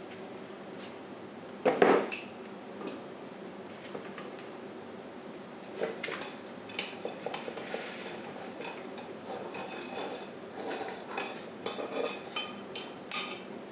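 A freshly cast aluminium block and a metal hand tool clinking and scraping against each other and the moulding sand as the casting is worked loose and pulled from the mould box. One loud knock about two seconds in, then from about six seconds a run of light metallic clinks, some with a short ring.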